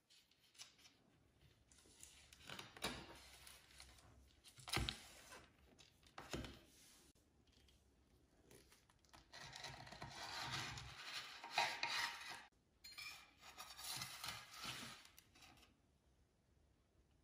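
Scraping and rubbing handling noises in two stretches of a few seconds each in the second half, after a few light knocks.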